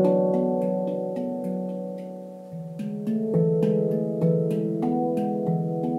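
Leaf Sound Sculpture handpan tuned to C# Locrian, played by hand: struck notes ring and slowly fade over the first couple of seconds, then a new run of quicker strokes picks up about halfway through.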